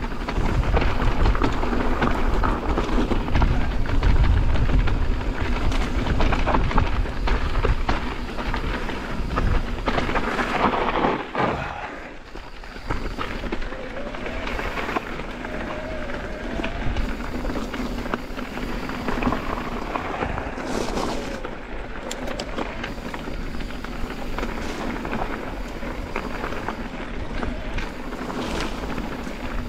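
Wind rushing over a helmet or body camera's microphone and knobby tyres rolling over a rough dirt trail during a fast mountain bike descent, with the bike rattling over bumps. The rush is heaviest in the first ten seconds and drops briefly a little before halfway.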